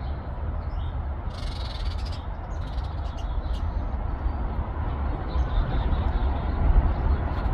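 Birds chirping in a pine tree, with scattered short high chirps and one harsh, rasping call about a second and a half in, over a steady low rumble.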